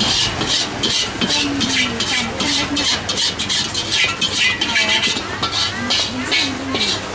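Quick, irregular scraping strokes inside an empty carbon-steel wok, about three a second, as it is worked around by hand.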